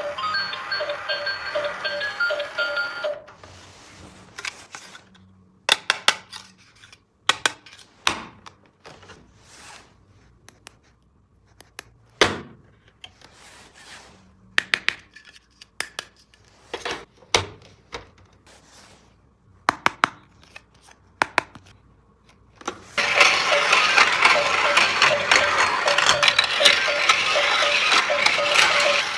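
Scattered sharp plastic clicks and clacks from a toy track set, with a busy, ticking, tune-like stretch at the start and a louder one from about two-thirds of the way in.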